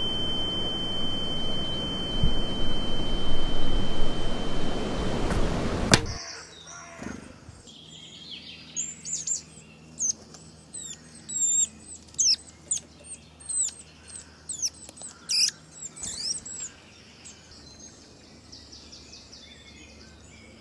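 A loud rushing noise with a steady high-pitched whistle over it cuts off suddenly about six seconds in. It leaves a quiet background of birds chirping, a string of quick, falling chirps that die away near the end.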